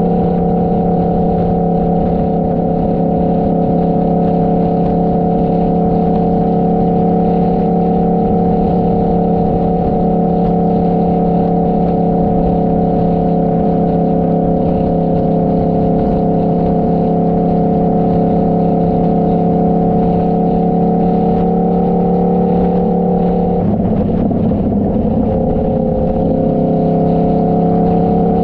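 Motorcycle engine running at a steady cruising speed while riding, with a rumble underneath. About three-quarters of the way through, the engine note wavers for a couple of seconds and then settles slightly lower, as the engine speed changes.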